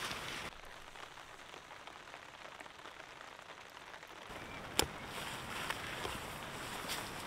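Rain falling on a tarp: a steady hiss with scattered drop ticks, quieter for a few seconds in the middle. A single sharp knock comes a little under five seconds in.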